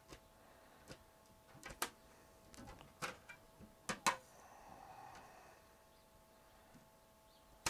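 Thin spring-steel flexible build sheet being lifted from and laid back onto a 3D printer's magnetic bed. A series of sharp clicks and taps as the sheet flexes and snaps against the magnet, the last and loudest near the end, over a faint steady hum.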